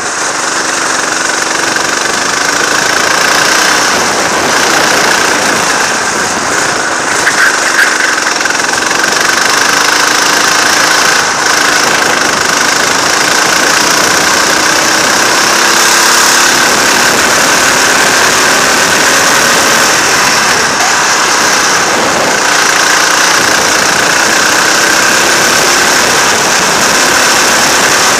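Go-kart engine running under load at lap speed, close up from the driver's seat, its pitch rising and falling as the revs change through the corners.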